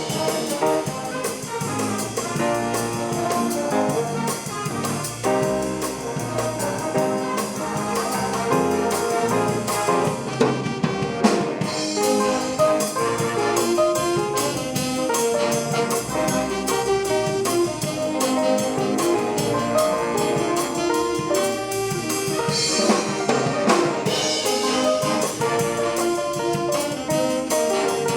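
A high school swing band playing a jazz number: trumpets and trombones over a drum kit.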